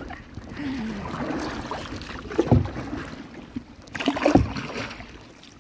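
Kayak paddle strokes in water: the blade splashes in twice, a little under two seconds apart, over a steady light wash of water.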